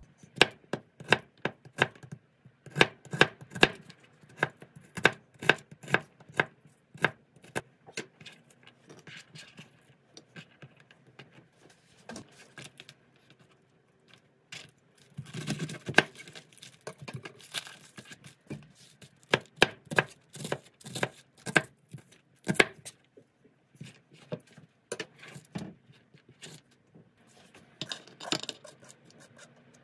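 Chef's knife chopping on a plastic cutting board: a quick run of even knife strikes, about two or three a second, as an onion is sliced, then cutting into a head of cabbage, with a denser crunchy stretch and scattered knife knocks on the board.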